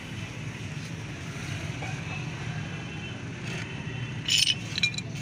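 Steady low rumble of outdoor traffic, with a few light clicks near the end as the fitted plastic tap is handled.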